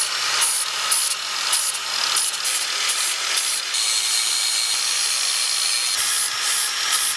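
Electric angle grinder running steadily with an abrasive disc against the steel backing plate of a 1965 Ford Falcon front drum brake, grinding the metal and throwing sparks. It has a steady high whine over the grinding noise.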